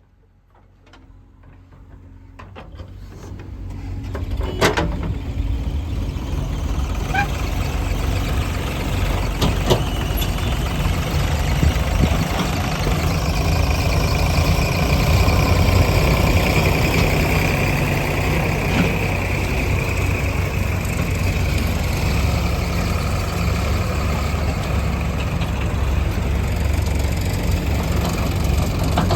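Heavy diesel machinery engine running steadily. It fades in over the first few seconds, with a couple of sharp knocks and a high whine in the middle.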